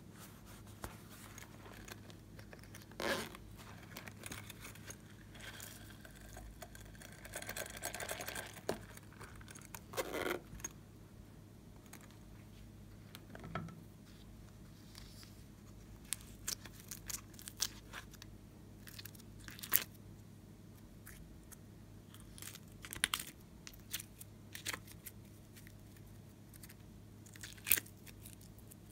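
Slime-making handling sounds: scattered small clicks and taps of a plastic palette container, sequins and soft slime pieces against a glass dish, with a longer rustling, crinkling stretch about five to nine seconds in.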